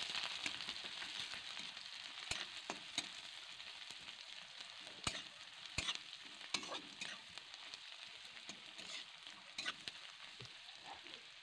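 Chopped onion, bay leaves and dried red chillies sizzling steadily in hot oil in a metal kadai, stirred with a metal spatula that clicks and scrapes against the pan now and then.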